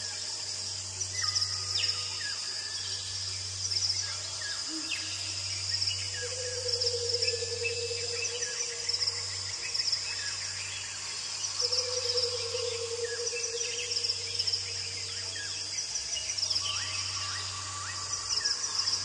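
A steady chorus of insects with scattered bird chirps and calls over a low hum, with two longer, low drawn-out tones partway through.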